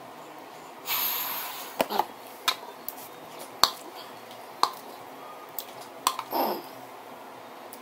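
Spoon clicking against a bowl half a dozen times, sharp and irregular, the loudest click about three and a half seconds in. There is a noisy breath about a second in and another near six and a half seconds in.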